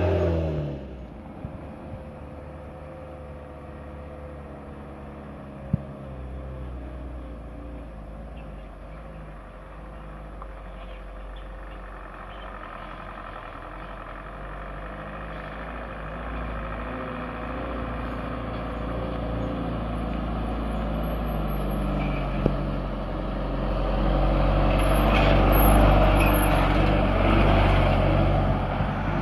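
Engine of an old sugarcane truck loaded with cane, loud for a moment and then cut to a faint, distant engine that grows steadily louder as the truck approaches, loudest near the end as it passes close by and then easing off slightly. Two short sharp clicks stand out over it.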